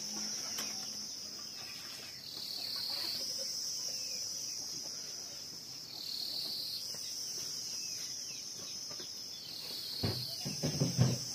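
Insects shrilling in a steady high-pitched chorus that dips slightly in pitch every few seconds, with faint bird chirps. Louder nearby sounds come in near the end.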